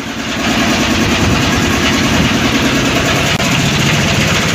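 Engine of a small wooden motorboat running steadily under way, with the rush of water and spray along the hull as it crosses choppy water; it grows louder about half a second in.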